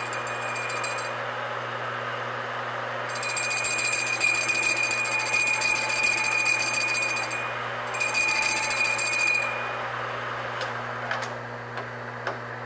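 Metal lathe running with a high-speed steel tool facing a thin model steam engine flywheel casting. The tool goes in and out of the cut three times, each cut with a high steady ringing tone from the thin part over the motor's constant hum. The cutting stops a little over halfway, leaving the lathe turning with a few light clicks.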